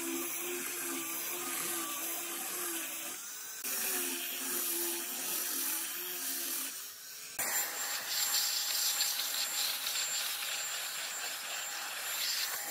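Angle grinder fitted with a sanding pad sanding the end grain of wooden plugs in a tabletop, its motor hum wavering in pitch as it is worked over the wood. About seven seconds in it gives way abruptly to an electric air blower running, a loud rush of air with a steady high whine, blowing off the sanding dust.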